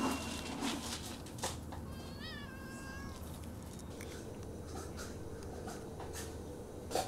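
Domestic cat meowing once, a wavering call about two seconds in, with scattered light clicks around it.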